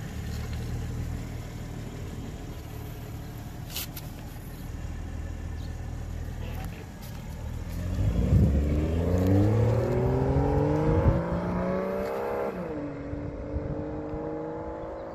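2021 Toyota Supra idling steadily, then pulling away: the engine note rises and grows louder for about five seconds, drops sharply at a gear change, and settles into a steady tone as the car moves off.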